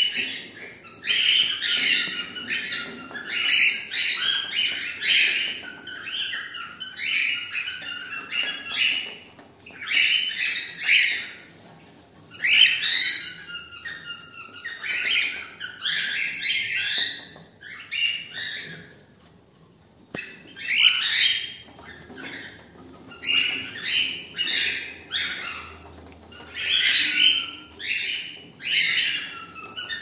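Cockatiels calling: runs of short, high-pitched chirping calls in quick succession, with a lull of a couple of seconds a little past halfway.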